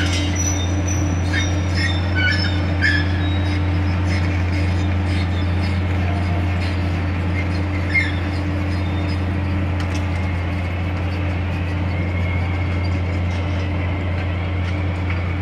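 Tracked excavator's diesel engine running steadily. Short high metal squeaks and clinks come in the first few seconds, another sharp clink about eight seconds in, and a faint high whine near the end.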